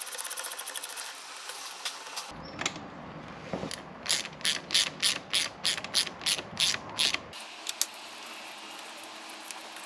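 Hand socket ratchet clicking as a bolt on the shifter linkage is turned. A fast run of clicks in the first second, then about a dozen slower, louder clicks, roughly three a second, which stop about seven seconds in.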